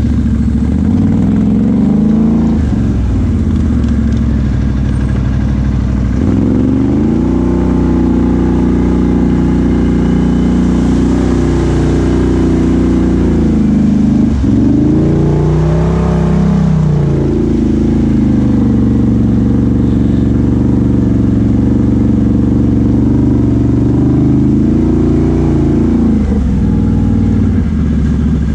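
Can-Am Outlander XMR 1000 ATV's Rotax V-twin engine running under throttle through an aftermarket Big Gun exhaust, the engine note dropping and climbing again several times as the rider eases off and gets back on the gas.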